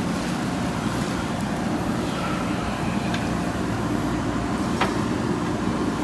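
JCB backhoe loader's diesel engine running steadily while digging, with a couple of sharp knocks about three and five seconds in.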